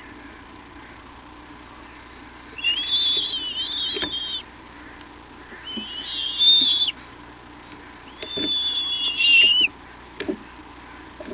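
Bald eagle calling three times, high whistling squeals of a second or two each with short pauses between, several pitches at once. A few faint knocks come between the calls.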